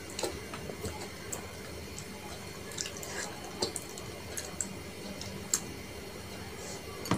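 Close, wet eating sounds: lips smacking and sucking at pieces of fish held in the fingers. They come as a string of irregular short clicks.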